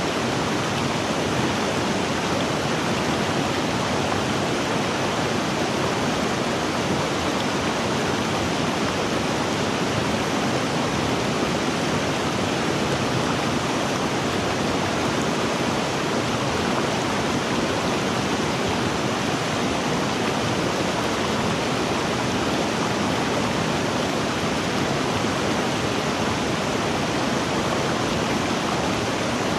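River water rushing over rocks, a steady, even flow with no breaks.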